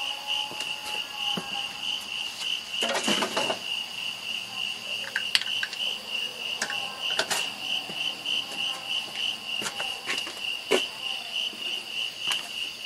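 Night insects chirping in an even, rhythmic pulse, with a few clinks and a clatter about three seconds in.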